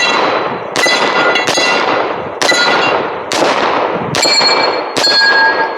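Rapid gunfire striking steel plate targets, about seven hits a little under a second apart, each one a sharp clang followed by the plate ringing.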